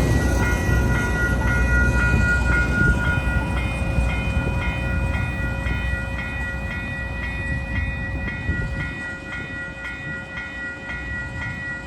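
CPKC welded rail train rolling past with a low rumble that slowly fades. Over it, a high ringing tone pulses steadily about twice a second.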